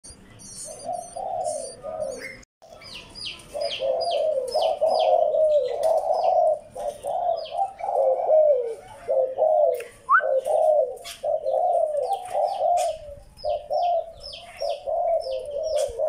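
Spotted dove cooing over and over, with short high chirps from small birds repeating above it. Near the start there are higher, thinner chirps, and the sound cuts out briefly about two and a half seconds in.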